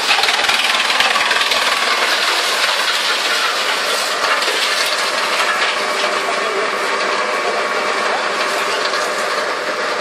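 Drum wood chipper running with its belt conveyors, a loud, steady mechanical din with a fine, continuous clatter in it.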